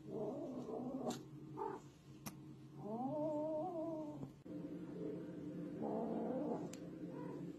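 Kitten making several wavering, drawn-out cries. The longest lasts about a second, around the middle.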